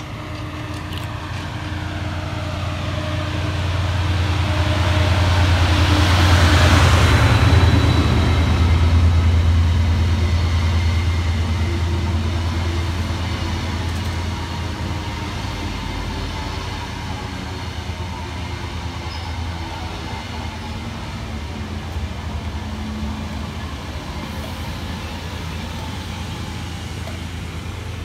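Class 68 diesel-electric locomotive running past hauling a rake of Mk3 coaches: a low engine drone with wheel-on-rail noise, loudest about seven seconds in as the locomotive goes by, then the steady rumble of the coaches slowly fading as the rest of the train passes.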